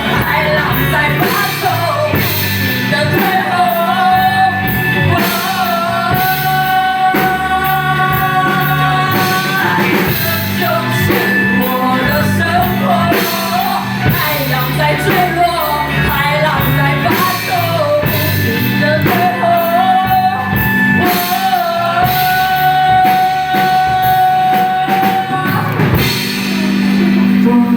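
Live rock band performing: a vocalist singing a melody with long held notes over two electric guitars, bass guitar and drum kit.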